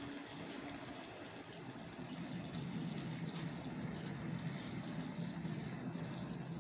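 A steady stream of water pouring into a steel bowl of chopped spring onion greens, splashing onto the greens as the bowl fills.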